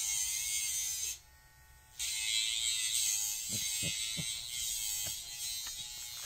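Electric pet nail grinder buzzing steadily on a dog's nails. It stops for about a second shortly after the start, then runs again, with a few soft low knocks in the middle.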